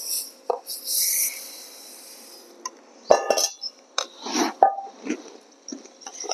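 Roasted rice grains poured into hot jaggery syrup in an iron kadhai with a hiss, then a steel spatula scraping and knocking against the pan as the rice is stirred through, several sharp strokes in the second half.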